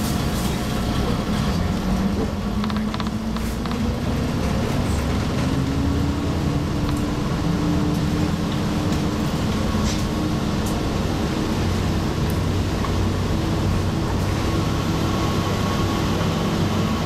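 Diesel engine of a KiHa 52 railcar heard from inside the cabin as the train pulls away from a station under power. The engine note rises over the first five or six seconds, then holds steady as the car gathers speed, with a few light clicks from the running gear.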